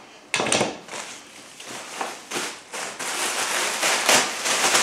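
Thin plastic bag crinkling and rustling as it is handled and opened, in dense irregular crackles that start sharply and grow busier toward the end.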